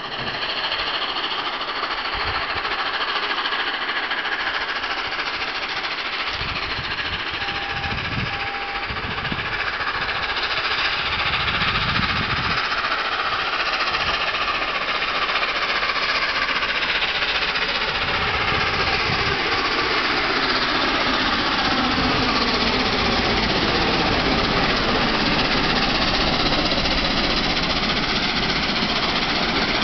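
LNER Peppercorn A1 Pacific steam locomotive No. 60163 Tornado approaching under power and running past at close range with its train. The noise of its exhaust and motion grows louder from about ten seconds in and holds steady as the locomotive draws level.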